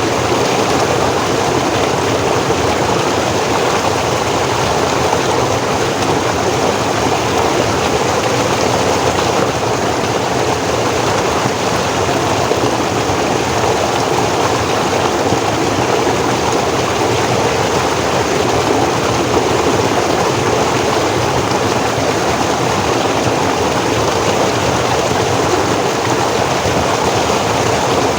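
Forest stream flowing and cascading steadily over rocks.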